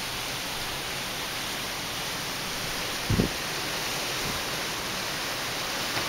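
Strong gusty wind rushing steadily over the microphone, with a brief low thump about halfway through.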